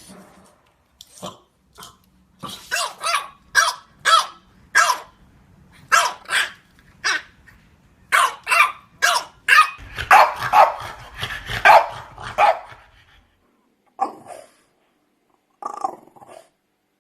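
French Bulldogs barking in a rapid series of short barks, thickening into a dense run about ten to twelve seconds in, then a short pause and a few scattered barks near the end.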